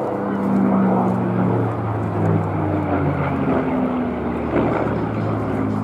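Supermarine Spitfire's Rolls-Royce Merlin V12 engine and propeller droning overhead in a display flypast, the pitch drifting down and up as it banks and passes.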